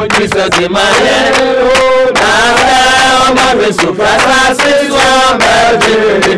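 A group singing a church chorus together, accompanied by steady hand-clapping at about three claps a second.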